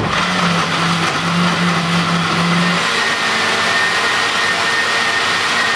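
Countertop blender running steadily, blending a mango and spinach smoothie. A low hum in the first half gives way to a steady high whine about halfway through.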